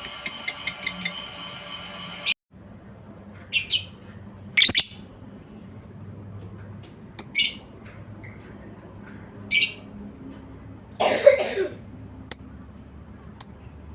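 Lovebird calling: a fast run of repeated high notes that cuts off about two seconds in, then single short, sharp chirps every second or two, with one harsher, louder squawk near the end.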